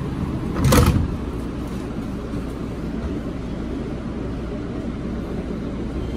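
2007 Kawasaki R160B subway train running between stations, a steady rumble of wheels and motors on the track, with a brief louder rattling burst about a second in.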